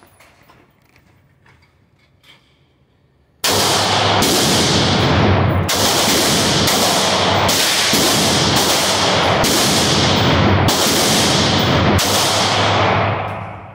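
A Glock 17 9mm pistol, fired without its compensator, shot about a dozen times in quick succession, roughly one or two shots a second, each crack echoing. The shooting starts about three and a half seconds in and stops just before the end.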